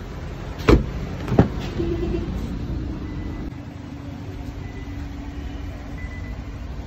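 Two sharp knocks about half a second apart, about a second in, then a faint steady hum under a low background rumble.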